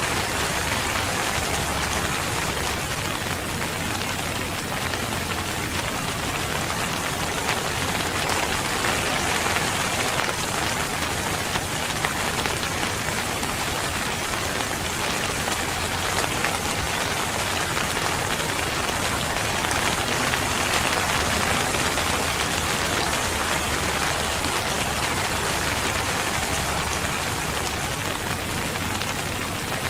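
Steady, dense rain falling on a surface, an even hiss without letup.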